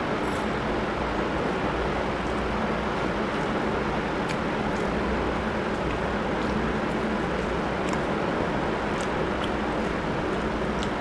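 Steady rushing background noise, with faint small clicks here and there from fingers working rice on a metal plate.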